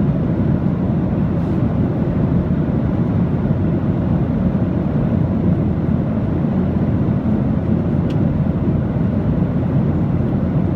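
Steady, low-pitched noise of an aircraft in flight, even and unchanging.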